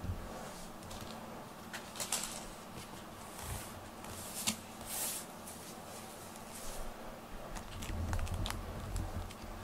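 Faint scattered ticks and brief soft rustles from cats shifting about, then low bumping and rubbing near the end as a black cat brushes against the camera.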